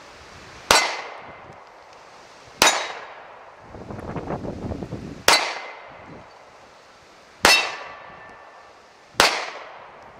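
Five slow, evenly paced 9mm shots from a Beretta Nano pistol, about two seconds apart, each followed at once by the clang of the bullet striking a steel target, which rings briefly.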